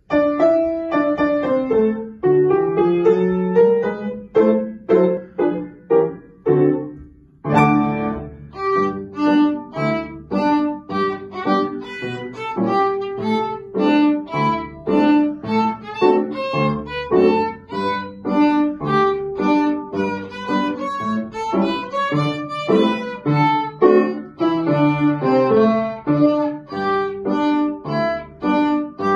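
A young student's violin with upright piano accompaniment playing a light, lively piece. The piano plays an introduction alone, and the violin comes in about seven seconds in, its held and bouncing notes carrying the tune over the piano.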